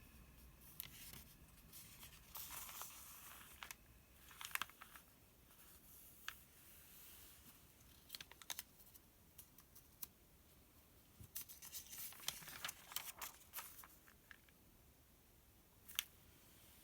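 Paper pages of a printed sales circular being handled and turned, giving soft, faint crinkles and scratches in short clusters, with a sharper click near the end.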